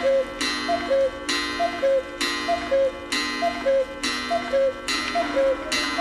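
A repeating electronic loop: about once a second a sharp strike is followed by two short notes, the second lower than the first, like a ticking chime.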